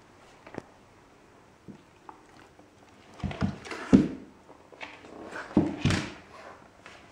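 A Border Collie and a kitten wrestling on a wooden floor. A few light taps and clicks come at first, then bouts of scuffling and thumps, the loudest about four and six seconds in.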